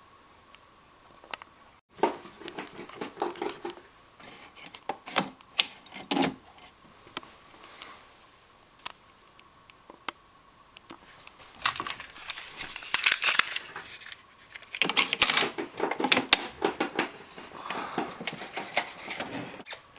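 Handling noise: irregular clicks, taps and crinkling, starting about two seconds in and coming in denser flurries in the second half, over a faint steady electronic whine.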